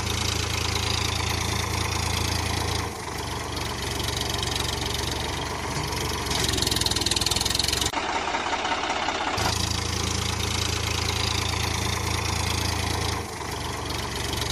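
Tractor engine running steadily. Its tone changes abruptly about three, eight and thirteen seconds in, and the deep low hum drops out for over a second around eight seconds.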